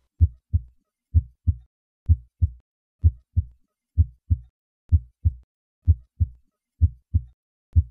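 Heartbeat recorded at the cardiac apex: paired lub-dub sounds, the first and second heart sounds, at about 65 beats a minute with clear silent gaps between the pairs.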